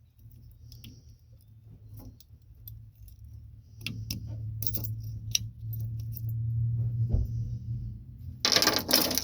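Keys jangling and small metal parts clicking and tapping as an ignition switch is worked into a truck's dash, over a steady low hum. A louder jangle comes near the end.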